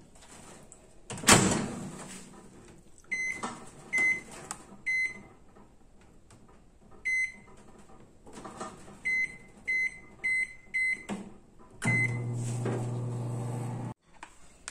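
Consul microwave oven: the door is shut with a thud about a second in, then the keypad gives a string of about eight short beeps as the power and time are set. Near the end the oven starts up and runs with a steady low hum for about two seconds before it cuts off.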